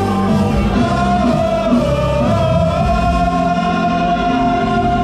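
Gospel song with band accompaniment, a singer holding one long note from about a second in.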